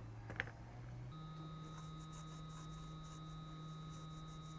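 Faint, steady electrical hum with a thin high whine that comes on about a second in, over light, quick scratching ticks: bench electronics running while a small part is worked off a circuit board.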